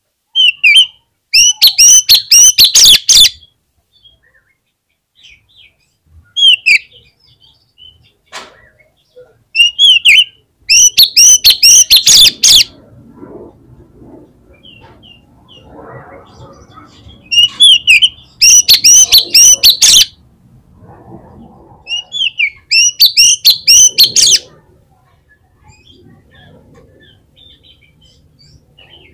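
Oriental magpie-robin singing loud, fast phrases of repeated high whistled notes in four main bursts of one to three seconds each, with short calls and pauses between them.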